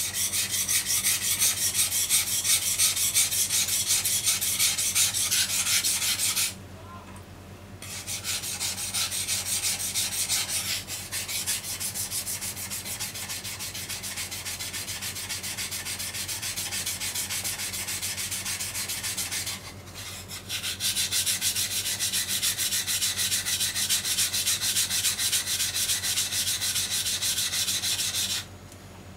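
Steel deba kitchen knife stroked rapidly back and forth on a wet whetstone, a continuous gritty scraping that grinds down an edge chipped from cutting bones. The strokes pause twice briefly, are quieter through the middle stretch, and stop near the end.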